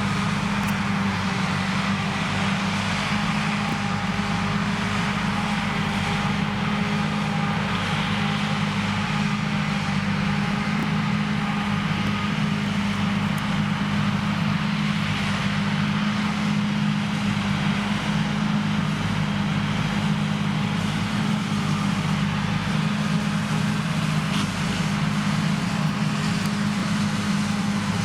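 Krone Big X 1100 self-propelled forage harvester running steadily under full load as it chops standing triticale, with a constant low engine hum over the even rush of the chopping and crop flow.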